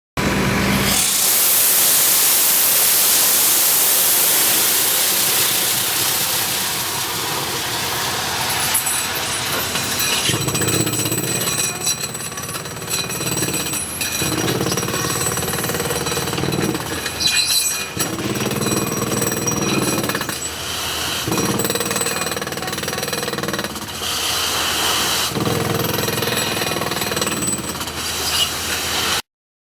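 CS ROCKIT 250RD drilling rig at work, drilling with a loud hiss at first. From about ten seconds in, its hammering runs in stretches of a few seconds, broken by short dips.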